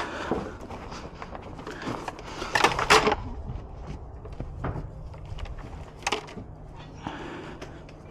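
Scattered knocks and clatter of junk being handled and set down, loudest in a quick cluster about three seconds in, with a single knock near six seconds.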